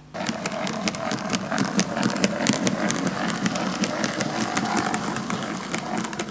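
OO gauge model train running past close by, its coaches rolling on the track with a steady running noise and many sharp clicks from the wheels.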